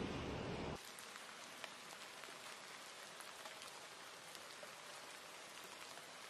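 Faint patter: a steady hiss with many small, scattered ticks, taking over after a louder noise stops about a second in.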